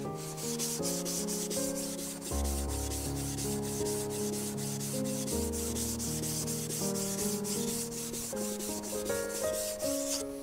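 A flat coarse whetstone rubbed back and forth on the wet face of a #1000 whetstone, grit on wet stone in quick even strokes about three a second. The rubbing conditions the stone's surface to check its roughness rather than to flatten it.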